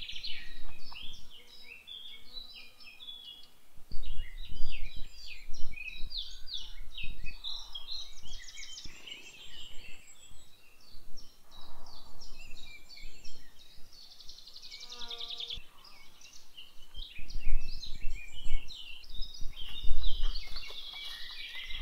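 Woodland songbirds singing, a dense run of short high chirps and trills from several birds, with low rumbles about four seconds in and again near the end.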